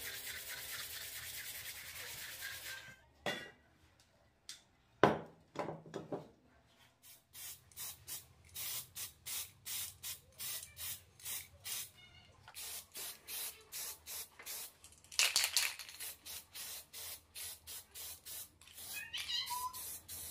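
Sandpaper being rubbed by hand over a plywood cutout, then a couple of sharp knocks. After that an aerosol spray-paint can hisses in short, even bursts about twice a second, with one longer burst in the middle.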